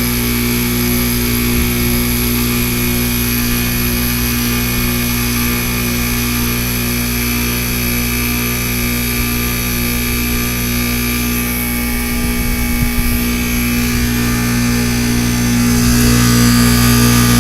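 Goodman heat pump outdoor unit running in defrost mode: a steady electrical compressor hum over a broad machine noise, getting louder near the end.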